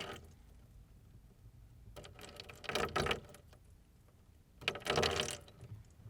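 Water poured in two short bursts, about two seconds in and again near five seconds, each lasting about a second.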